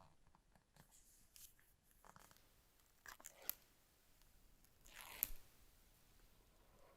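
Faint crinkling and tearing of packaging being handled while a phone box is opened, with scattered small clicks and two louder crackling rustles about three and five seconds in.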